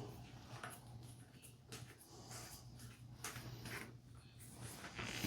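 Faint scraping, rustling and a few light knocks of handling, over a steady low hum.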